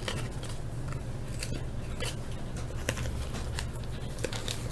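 Trading cards being handled: a scatter of small crisp clicks and rustles as cards are sorted and shuffled, over a steady low hum.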